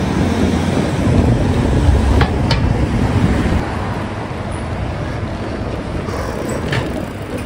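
Wind rumbling on the microphone of a camera carried on a moving bicycle, a steady low rush with a few short clicks.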